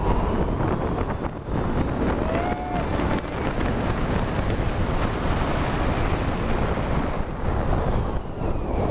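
Airflow rushing over the microphone in flight under a paraglider: a steady, loud wind roar. About two and a half seconds in, a short tone glides up and back down.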